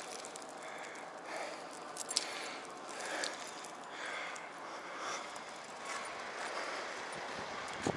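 Steel snow-chain links clinking and jingling in short scattered bursts as a tyre chain is handled and spread out, over a steady hiss, with a sharp clink near the end.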